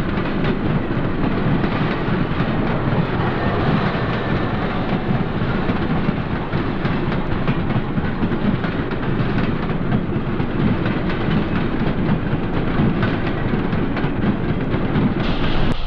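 Train running, a steady heavy rumble with rail noise.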